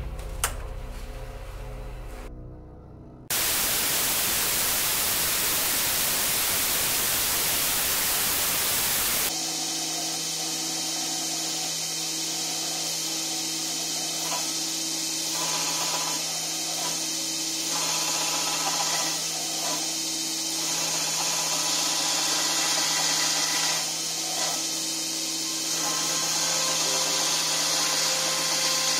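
A belt grinder running steadily as a hardened steel knife blade, clamped in a flat-grinding jig, is ground against the belt. The grinding hiss comes and goes with the strokes. Before that come a sharp click and several seconds of loud, even hiss.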